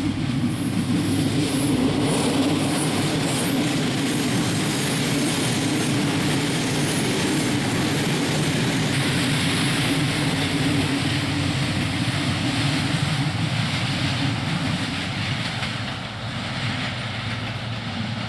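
Diesel railcar train passing close by, a steady loud rumble and rattle of wheels on the track, easing a little near the end.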